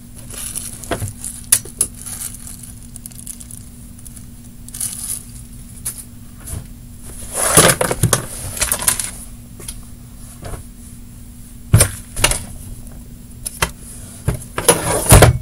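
Hands rummaging through a drawer as it is emptied, small items clattering and knocking against each other, with louder bursts of rummaging about halfway through and near the end.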